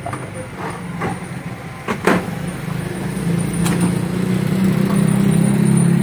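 A few sharp clicks from the microwave oven's door latch hooks as they are handled, over a steady low mechanical hum that grows louder in the second half.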